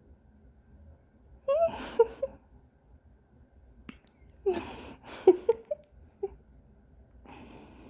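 A newborn baby's small breathy sounds with little squeaks, in two short bursts about three seconds apart.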